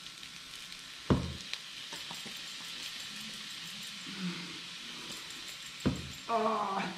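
Rice and onions sizzling in a frying pan, a steady hiss that goes on although the hob has just been switched off. There are two sharp knocks, about a second in and near the end, and a brief vocal sound just before the end.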